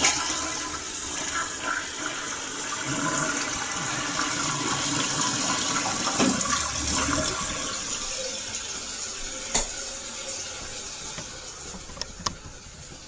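Toilet flushing: a rush of water that slowly dies away, with a sharp click about ten seconds in and two more near the end.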